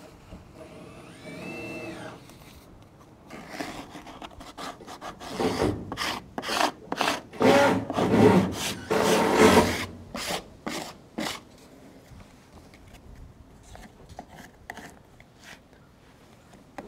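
Self-adhesive joist flashing tape being smoothed and rubbed down by hand onto wooden deck framing, so that it keeps water off the framing members: a run of rough, irregular rasping rubs, loudest in the middle. A brief squeak comes about a second in.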